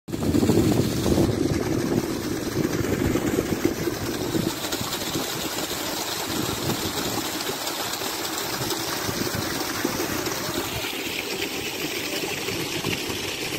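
Water gushing hard from a solar pump's discharge pipe and splashing onto bricks, a steady rushing sound. About ten seconds in it turns thinner and hissier.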